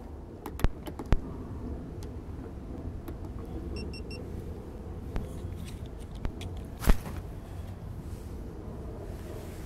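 A few sharp knocks on a 14-foot jon boat, the loudest near the start and about seven seconds in, over a steady low rumble. About four seconds in come three quick electronic beeps.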